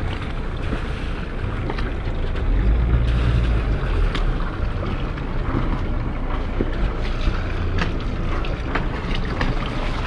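Wind buffeting the microphone aboard a sailing yacht at sea, a steady low rumble that swells about three seconds in, with water along the hull and a few light knocks.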